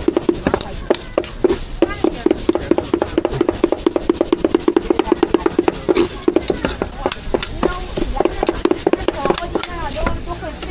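Meat for roujiamo being hand-chopped with a knife: a fast, steady run of chops, several a second. Voices come in near the end.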